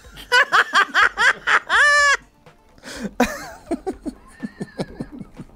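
A man laughing hard in quick bursts, ending in a long high whoop about two seconds in, followed by quieter chuckling and a few small clicks.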